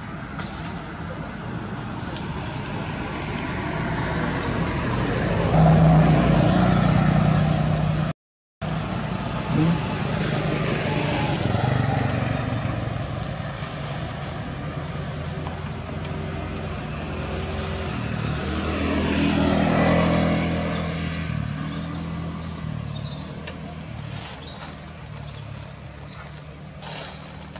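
Motor vehicles passing: engine noise swells and fades, loudest about six seconds in and again around twenty seconds. The sound cuts out briefly just after eight seconds.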